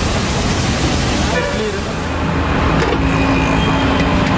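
Busy roadside street noise: steady traffic with people talking in the background. A broad hiss fills the first few seconds and breaks off suddenly about three seconds in, leaving a steady low hum.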